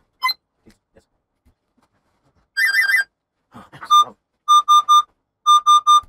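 Laptop speaker beeping electronic tones while the Dell Inspiron 5570 runs its pre-boot test: a quick three-note chirp, then a single beep, then two groups of three short beeps.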